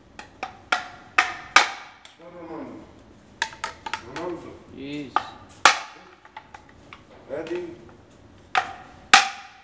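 Sharp metal knocks with a brief ring, a handful in irregular clusters, as the inner and outer tubes of a Suzuki TL1000R front fork are slid and knocked against each other by hand during a fork seal rebuild. Voices talk faintly between the knocks.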